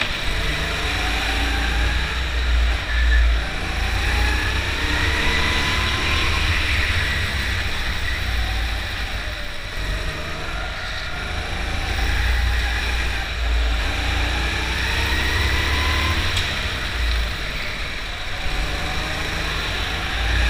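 Onboard sound of an indoor rental go-kart's engine at racing speed, heard from the kart itself. Its note rises again and again as it accelerates along each straight and drops off into the next corner, over a heavy low rumble.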